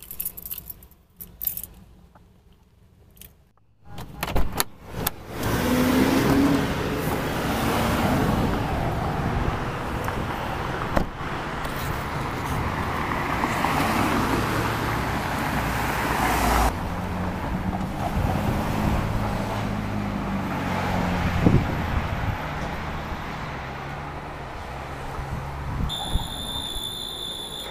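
Street traffic, with cars passing close by on a city road and the noise rising and falling. A few key jangles and clicks come in the first seconds, and a short high electronic tone sounds near the end.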